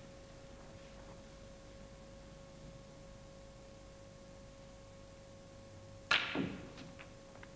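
Snooker cue striking the cue ball about six seconds in, a single sharp click, followed within the next second by a few fainter clicks of balls knocking together, over a faint steady hum.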